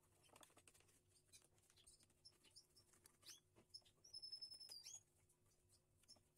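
Near silence: faint scrapes and taps of a wooden stick pressing filler into holes in a wooden stool seat, under a faint steady hum. About four seconds in, a small bird gives a short, high chirp that drops in pitch at its end.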